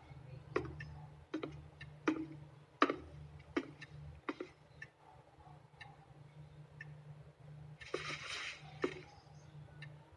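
A clock ticking slowly and evenly, about one tick every three-quarters of a second, over a faint low hum; the ticks grow fainter about halfway through. A brief soft rustle comes about eight seconds in.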